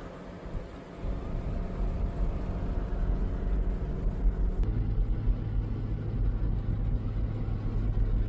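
A motor vehicle's engine running with a steady low drone, which grows louder about a second in.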